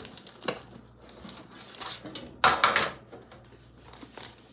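Kitchen counter handling noises: scattered light clicks and knocks of containers being moved, and about two and a half seconds in a short, loud rustle of plastic, the loudest sound here.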